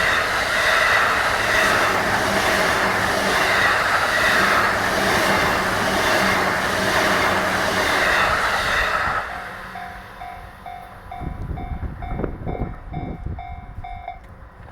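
JR East Kumoya E493 series electric unit passing over a level crossing, its wheels clattering over the rail joints for about nine seconds. As it fades, the level crossing bell is heard ringing about twice a second, stopping just before the end.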